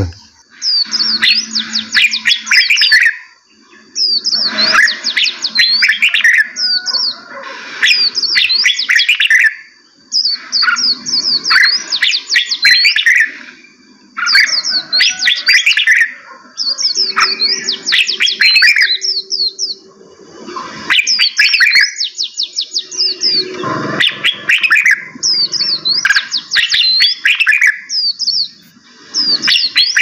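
Songbirds singing: repeated phrases of rapid, high notes, each phrase two to three seconds long, with short pauses between.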